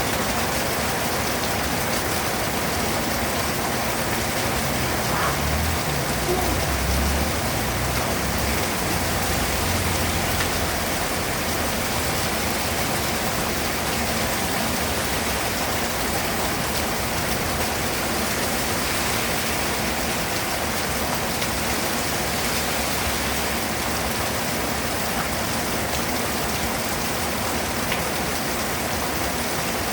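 Rain falling steadily, an even hiss of drops on surfaces. A low rumble rises under it about five seconds in and fades out by about eleven seconds.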